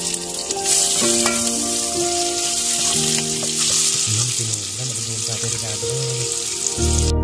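Chopped garlic, onion and ginger sizzling as they sauté in hot oil in a metal pot, stirred with a ladle. Music plays underneath.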